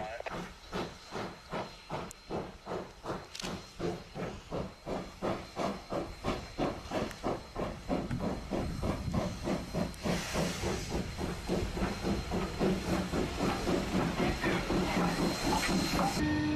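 Steam locomotive chuffing in a steady rhythm, the exhaust beats quickening from about three to about four a second as it gathers speed. Just before the end the sound cuts abruptly to a steady drone.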